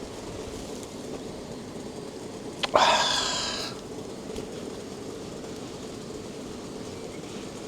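Gas camp burner burning steadily under water being heated to the boil. About three seconds in there is a metallic clink that rings and fades over about a second.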